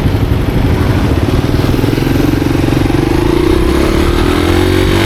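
Monarch Axis 125 motorcycle engine running, its revs rising about two seconds in and then holding steady.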